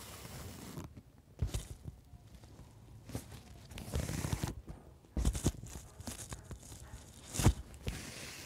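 Fabric rustling and thread being pulled through cloth while a skirt hem is hand-sewn, in irregular scratchy strokes, with a few sharper thumps from the fabric being handled.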